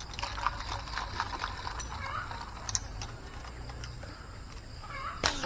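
Quiet outdoor ambience with faint animal calls and scattered light ticks over a low rumble, then one sharp crack near the end.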